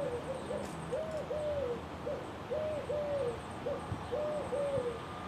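A dove cooing a repeated three-note phrase, a short note then two longer arched notes, about every second and a half, over a faint low rumble.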